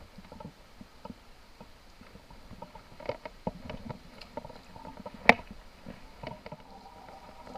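Scattered small clicks and knocks of hands handling gear or a caught fish, with one sharp loud knock about five seconds in.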